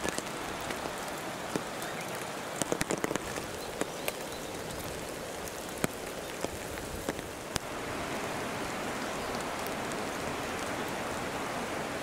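Rain falling, with scattered drops ticking sharply on a nearby surface; about seven and a half seconds in the ticks stop and it becomes a steadier, slightly louder hiss.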